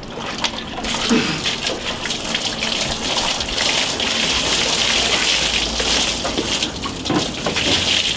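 Water pouring from a plastic bucket into a clear plastic tub already holding water: a steady gush and splash that builds up within the first second and keeps going.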